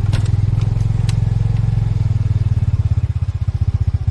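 Small motorbike engine running steadily at low revs close by, its evenly spaced exhaust pulses plain, with a few light clicks in the first second.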